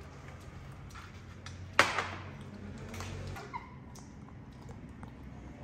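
Quiet table sounds with one sharp knock about two seconds in: a glass, carton or bottle set down on the glass-topped table, with a brief ring after it and a few fainter ticks.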